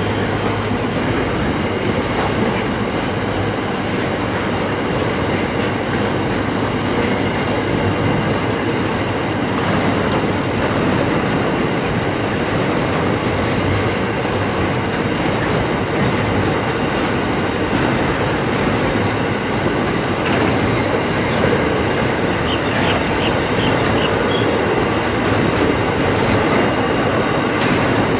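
Loaded or empty steel coal hopper wagons of an Aurizon freight train rolling past on narrow-gauge track: a steady, unbroken noise of wheels running on the rails.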